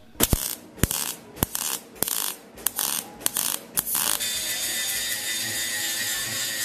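Short bursts of arc welding crackle, about ten of them over four seconds, as the seams of a sheet-steel box are tack-welded. About four seconds in, an angle grinder takes over, grinding the steel box with a steady, even noise.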